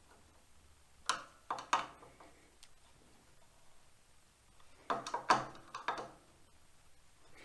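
Light sharp clicks and taps of metal parts being handled on the table saw during a hand adjustment: three about a second in, then several close together around five to six seconds in.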